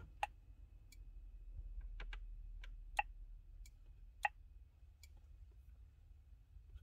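Scattered sharp clicks as fingertips tap an aftermarket Android touchscreen head unit, three of them louder than the rest, over a faint steady high whine.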